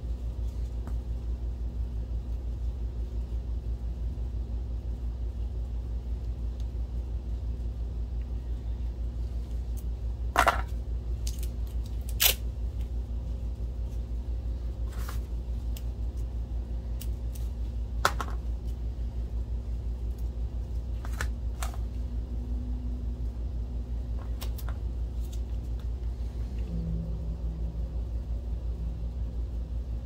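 A steady low hum, with a handful of sharp clicks standing out above it, the loudest about ten, twelve and eighteen seconds in.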